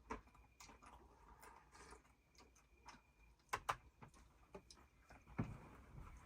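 Faint, scattered clicks and light knocks of small objects being handled, with a sharp click at the start, two quick clicks a little past halfway and a duller thud near the end.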